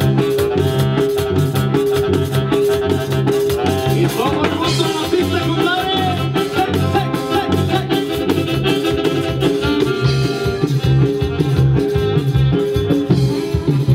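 Live band playing a Latin dance number through the stage sound system: accordion leading over keyboards, bass guitar and a drum kit keeping a steady beat.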